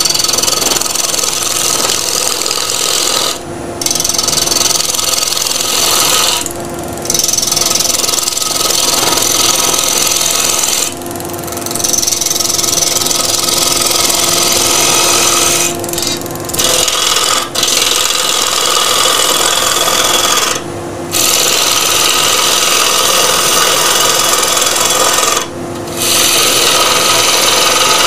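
A gouge roughing down a dry laburnum log spinning on a wood lathe: a continuous rasping hiss of the cut, broken by about seven short pauses where the tool comes off the wood. Under it is the steady hum of the lathe and the dust extractor.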